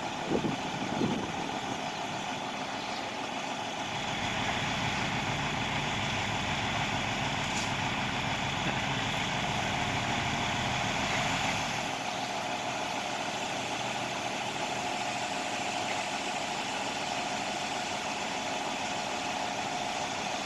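Heavy truck engine running steadily at a concrete pour, a little louder for several seconds in the middle, with a steady whine joining about halfway.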